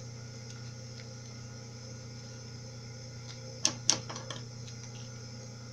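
Scissors snipping a sheet of clear plastic to round off a corner: two sharp snips about a quarter second apart a little past halfway, followed by a few lighter clicks, over a steady low hum.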